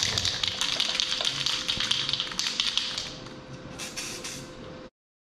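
Aerosol spray paint cans being shaken, the mixing balls rattling rapidly, then a short hiss of paint spraying about four seconds in. The sound cuts off suddenly near the end.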